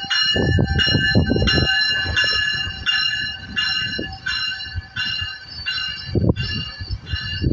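Metrolink bilevel commuter train rolling slowly into the platform, cab car first. Its warning bell rings steadily about one and a half strokes a second over the uneven rumble and clatter of the wheels, which is loudest in the first couple of seconds.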